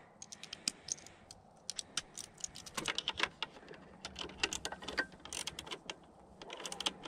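Socket ratchet wrench clicking in short runs of rapid ticks as a nut is turned, with brief pauses between swings.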